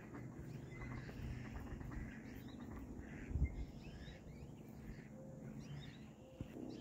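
Outdoor ambience: scattered faint bird chirps over a steady low rumble, with one brief dull thump about three and a half seconds in.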